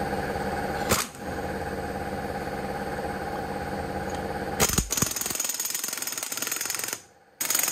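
A TONE air impact wrench hammering on the large 36 mm rear hub nut of a Daihatsu Mira to break it loose. The hammering breaks off briefly about a second in, stops at about four and a half seconds, then comes back in one short burst near the end.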